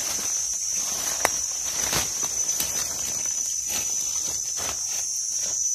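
Steady high-pitched drone of insects, with crunching and rustling of dry leaf litter underfoot and a few sharp clicks, the loudest about a second in.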